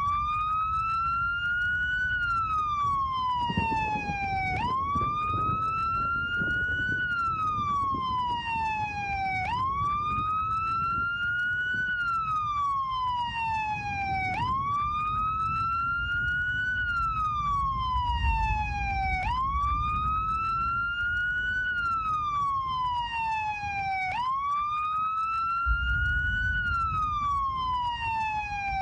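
A siren wailing, its pitch rising quickly and then falling slowly in a cycle of about five seconds, with a low rumble underneath.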